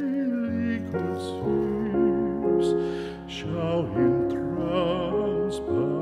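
Soft, slow background music: a melody with vibrato over sustained keyboard chords.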